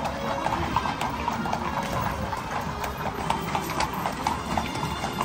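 Shod horses walking on a paved street, many hooves clip-clopping in an irregular overlapping patter.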